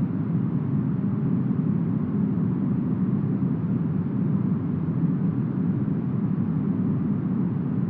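Smoothed brown noise: a steady, deep hiss, heaviest in the low range, with no gusts or changes.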